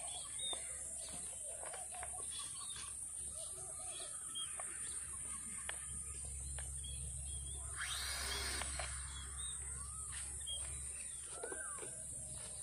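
Birds chirping and calling outdoors: many short, scattered chirps and whistles over a steady high hiss, with a louder, rougher call lasting about a second, about eight seconds in.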